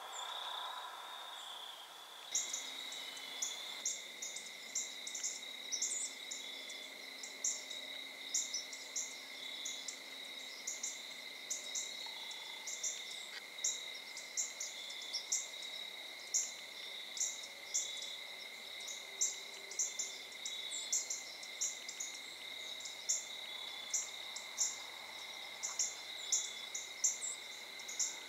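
Insects chirping in a chorus, crickets among them: a steady high trill with short, sharp chirps repeating irregularly over it, several a second. The chirping sets in about two seconds in.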